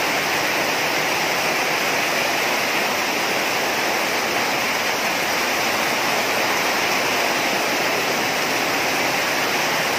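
Heavy rain pouring steadily onto floodwater, an even rushing hiss with no break.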